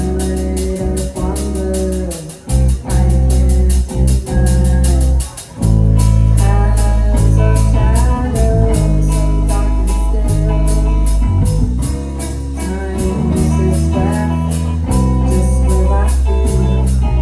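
Live band playing a rock song with electric guitar, bass and drum kit on a steady beat, stopping and starting in short hits before settling into a full groove about six seconds in.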